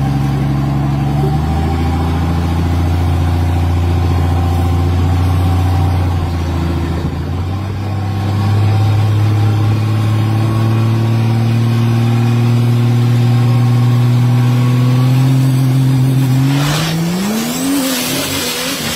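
Diesel drag truck engine held at steady high revs on the start line while it belches black smoke, then launching about three-quarters of the way through, its revs climbing sharply before dropping away as it pulls off.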